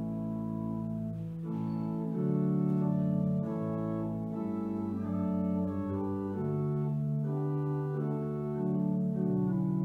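Church organ playing a slow piece in held chords that change about once a second.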